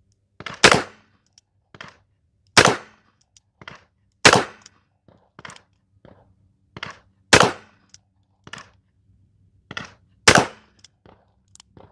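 Henry Big Boy Revolver firing .38 Special rounds: five sharp shots about two to three seconds apart, with fainter cracks in between.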